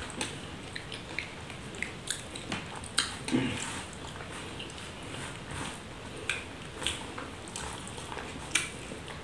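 Eating by hand: fingers squeezing and mixing rice on a banana leaf, with wet chewing and lip smacks. Irregular soft clicks and squelches, with a louder, longer one about three seconds in.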